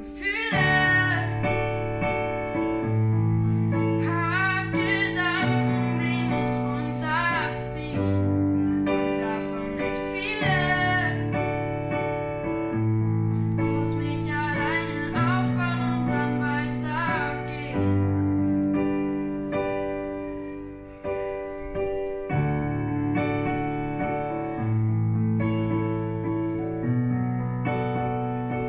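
A young girl singing a slow, gentle song to her own accompaniment on a Yamaha digital piano: sustained chords over a stepping bass line. Her voice stops a little past halfway, leaving the piano playing alone.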